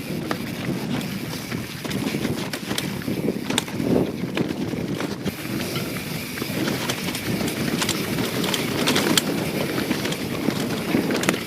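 A YT Jeffsy 27 mountain bike riding over rough ground: the tyres rumble on dirt and gravel, and the bike knocks and rattles sharply over bumps, with wind on the microphone.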